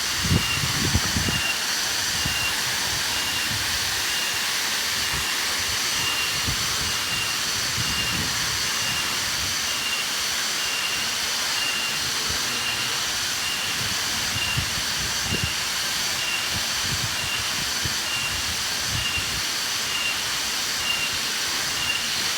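Steady rushing of a waterfall, with a short high chirp repeating about once a second over it and scattered low thuds.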